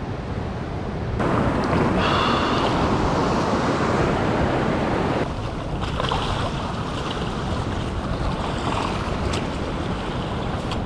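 Sea surf washing and surging over a rocky shore, with wind on the microphone, starting about a second in.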